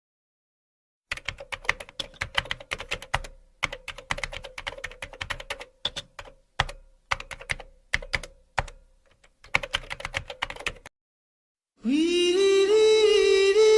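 Fast typing on a computer keyboard: rapid key clicks in bursts with a few short pauses, stopping after about ten seconds. Near the end a voice comes in holding a long sung note.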